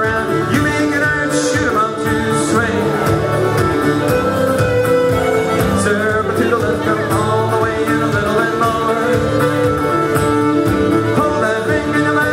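Live contra dance music: a fiddle playing a dance tune over guitar accompaniment, continuous and steady.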